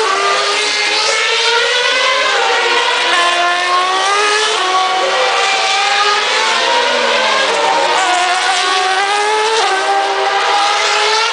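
Formula One cars' V8 engines screaming on track, several at once. Their pitch climbs and drops in steps as they change gear.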